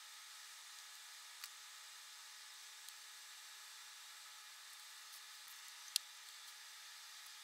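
Faint steady hiss of room tone with a few small, sharp clicks of handling, the sharpest about six seconds in.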